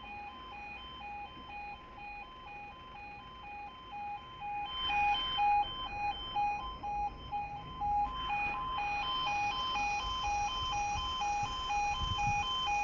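UK level crossing audible warning alarm sounding: a steady electronic tone pulsing rapidly, about three beeps a second. Two brief swells of rushing noise come about five and eight seconds in.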